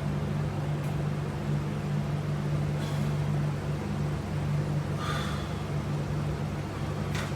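A steady low hum, with faint brief rustles about three and five seconds in.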